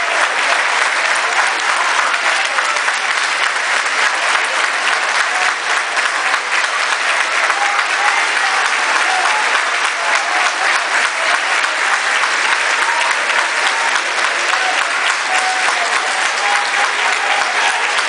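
Large audience applauding: dense, steady clapping that keeps up without a break.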